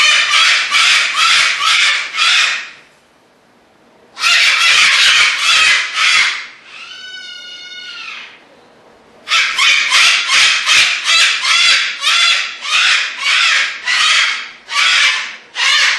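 Cockatoos screaming: bouts of loud, harsh screeches repeated about three times a second, with two short pauses. A quieter drawn-out call that rises and falls in pitch fills the second pause.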